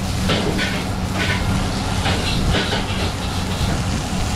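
Smash-burger beef patty sizzling on a flat-top griddle over a steady low hum. Several short, bright shakes of a seasoning shaker come through as the patty is seasoned.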